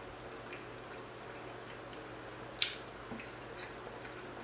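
A person chewing food quietly, with soft wet mouth clicks and smacks scattered throughout. A sharper click comes about two and a half seconds in.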